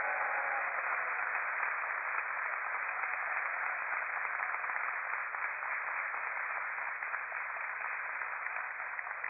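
Steady radio static hiss on the amateur radio downlink with no voice coming through, as the International Space Station's signal fades out of range.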